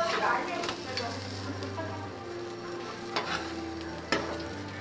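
Quesadillas sizzling on a flat-top griddle while a metal spatula scrapes and clicks against the griddle plate as they are lifted and flipped. There are sharp scrapes at the start, about a second in, and twice more near the end, over a low steady hum.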